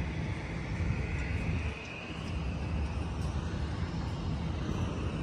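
Airport ramp noise: an uneven low rumble, like wind on the microphone, under a thin high whine from turbine machinery that climbs slightly in pitch over the first two seconds and then holds steady.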